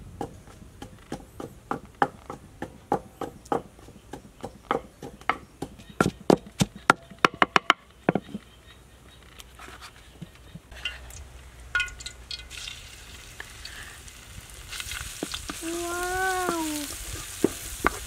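Wooden pestle pounding in a clay mortar, crushing shallots and garlic into a paste: regular knocks about two a second that stop about eight seconds in. Later the paste sizzles in hot oil in a wok, louder toward the end, as a wooden spatula stirs it.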